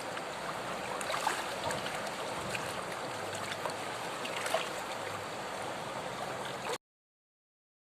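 Steady rush of river water flowing over a shallow stretch, with a few faint clicks, cutting off abruptly near the end.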